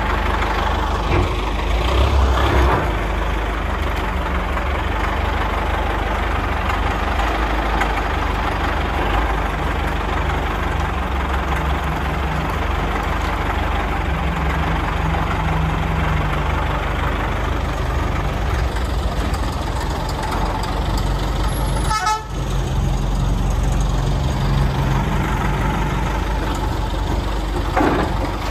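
A wheel loader's diesel engine running steadily under load while its bucket pushes down a masonry wall. Crumbling rubble and knocks come through at times, most clearly about two seconds in and near the end.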